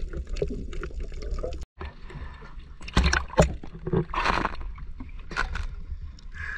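Water splashing and sloshing around a small fishing boat over a low steady rumble, with a few sharper splashes in the second half.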